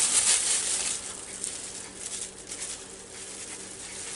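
Dry barbecue spice rub shaken from a shaker-top jar onto raw pork tenderloin and the plate: a soft hiss and patter of falling granules. A louder rustle comes in the first second, then the shaking goes on more quietly.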